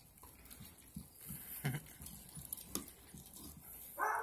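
Puppy gnawing a raw, partly frozen chicken drumstick, bone and all: soft, irregular crunches and clicks.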